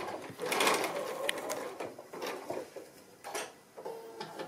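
Bernina sewing machine stitching a seam through cotton fabric for a couple of seconds, then a few scattered sharp clicks as it slows and the fabric is handled.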